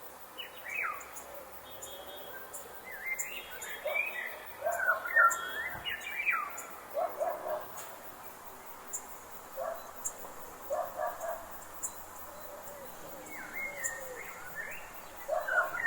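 Forest birds calling, a mix of quick chirps and sliding whistled notes, with short clusters of lower notes coming every second or so and faint high ticks scattered throughout over a soft background hiss.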